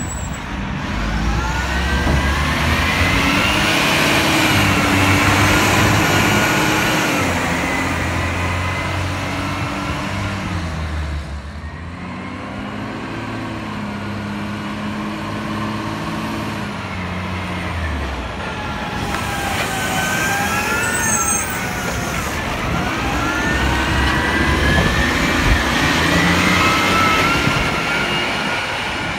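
Side-loader garbage truck's diesel engine revving up and down as it pulls away, then approaches and pulls up. Rising and falling whines run over the engine, most noticeable in the second half.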